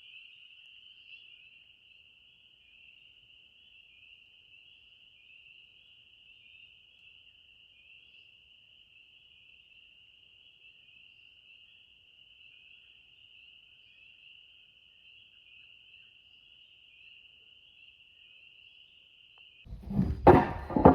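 A frog chorus trilling steadily in one high, evenly pulsing band. Near the end it cuts off and a few loud knocks follow.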